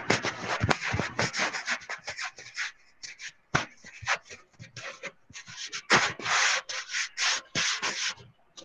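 Pen writing on paper close to the microphone: a run of short, irregular scratchy strokes with brief pauses between them.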